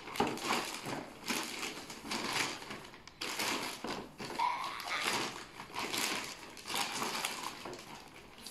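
Thin black plastic gift bag crinkling and rustling in irregular bursts as hands pull it open and rummage inside.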